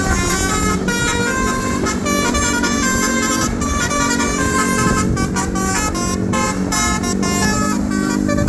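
Bus basuri melody horn playing a quick tune of short stepped notes, over the steady low hum of the bus.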